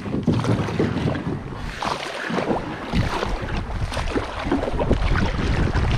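River water rushing and splashing around a paddled boat on a whitewater descent, with many short irregular splashes and wind rumbling on the microphone.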